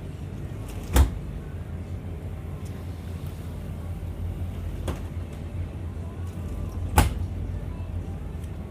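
Two sharp knocks about six seconds apart, with a fainter one between them, over a steady low rumble.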